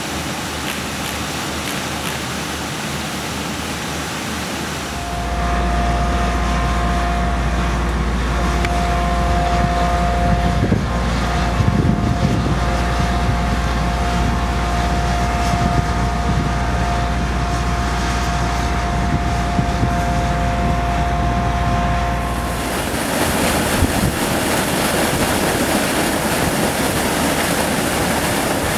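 Water pumped through large discharge hoses pouring and splashing into a canal lock, a steady rush. From about five seconds in until a few seconds before the end, a steady motor drone with a deep hum and a held whine runs under it.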